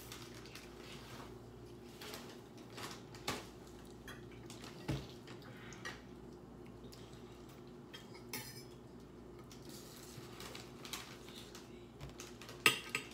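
Fork and cutlery clinking against dinner plates in scattered light taps, with two sharper clinks close together near the end.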